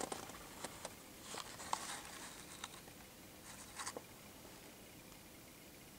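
Faint scratchy rustling and small clicks of a plastic blister pack on its card backing, handled in the fingers. They come in short scattered bits through the first four seconds, then die down.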